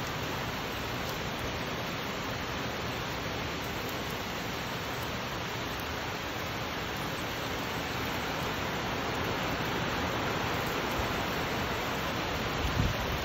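Heavy rain pouring steadily on trees and foliage during a storm, an even hiss. A few short low thumps come near the end.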